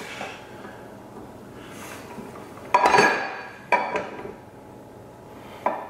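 Steel parts of an NP273 transfer case clinking and knocking together as the shift fork is worked into place, with three sharp metallic clinks: about three seconds in, a second later, and near the end.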